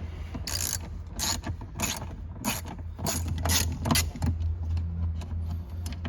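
Ratchet with a 7mm socket clicking in short back-and-forth strokes, about two a second, as it backs out screws holding the dash trim panel.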